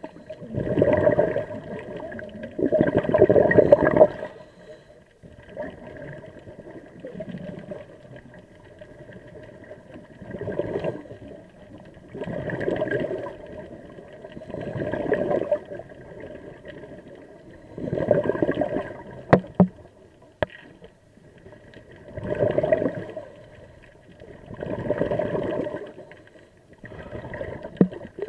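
Scuba regulator breathing heard underwater: bursts of bubbling exhaust a few seconds apart, with quieter stretches between. Two sharp clicks sound near the middle.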